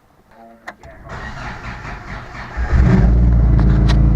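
Subaru's flat-four engine cranked by the starter for about a second and a half, then catching a little under three seconds in and running steadily.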